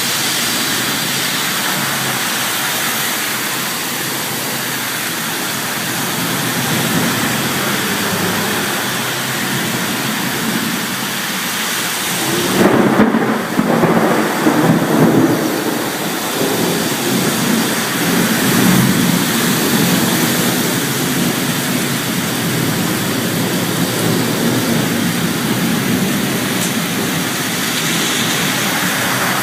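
Steady loud noise of heavy rain and fast-running floodwater, with a louder low rumbling stretch about halfway through.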